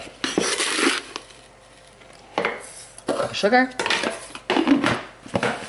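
Plastic measuring cup scooping sugar from a canister and tipping it into a mixing bowl, with clattering and scraping of the cup and a spatula against the bowl. There are two spells of clatter with a quiet pause between them.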